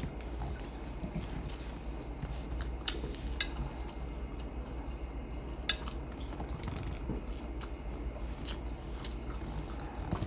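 Steady low hum with a few scattered sharp clicks and light knocks.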